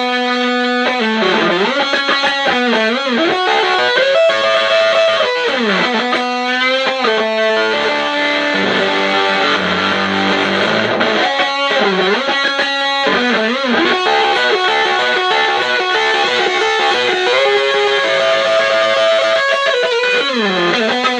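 Electric guitar on its neck pickup played through a clone of the Castledine Buzzsound pedal with sustain full up, the guitar's volume knob rolled down to show how the distortion cleans up. Long sustained notes and phrases with string bends and slides.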